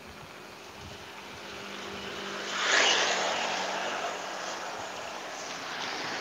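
A motor vehicle passing on a wet road: the hiss of tyres on wet asphalt, with a faint engine note, swells to a peak about three seconds in, then eases back to a steady traffic hiss.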